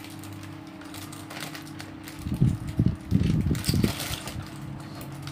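Handling noise from Lego parts bags being picked up and opened: several low thumps with some rustling, bunched between about two and four seconds in, over a steady low hum.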